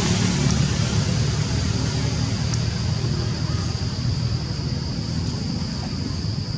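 Steady outdoor background noise: a low rumble of wind buffeting the microphone, with a constant high hiss above it.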